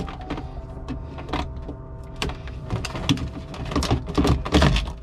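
Irregular knocks, clicks and clatters of a bilge blower and tools being handled and worked loose, heaviest near the end, over a faint steady hum.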